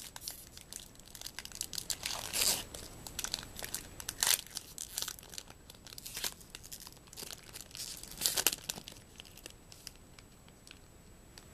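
Foil wrapper of a Magic: The Gathering Dominaria booster pack being torn open and crinkled. There are irregular crackling rustles, with louder rips about two seconds in, about four seconds in and again around eight seconds.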